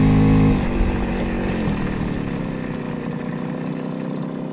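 Puch Maxi moped's 50cc two-stroke single-cylinder engine running under way. Its strong, even note drops away about half a second in, leaving a quieter, rougher running sound.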